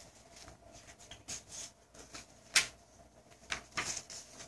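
Pages of a children's picture book being turned and handled: light paper rustles and soft taps, with one sharper click a little past halfway.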